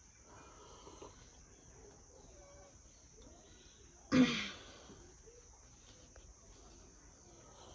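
Steady high chirring of insects such as crickets. About four seconds in, one short, loud, breathy vocal sound from a person.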